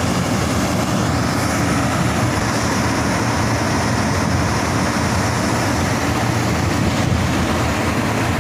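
Kobelco SK380XD LC crawler excavator's diesel engine running steadily as the machine tracks down off a lowboy trailer.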